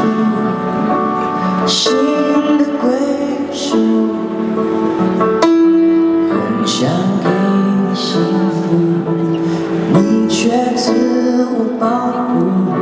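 A singer's voice over a grand piano in a slow song, played live through a concert sound system.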